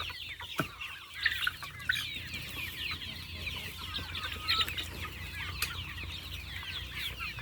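A flock of chickens clucking and chirping steadily, many short calls overlapping, as they scratch through a compost pile.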